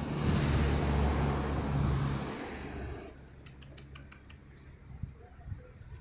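A vehicle passing on a nearby road, its engine hum and tyre noise fading away over the first three seconds. A quick run of about seven faint high ticks follows, then only quiet background.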